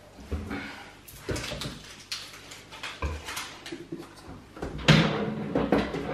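Plastic spray bottles of cleaning products knocking and clattering as they are picked up and set down on a cabinet shelf and into a plastic bin, with a louder knock about five seconds in.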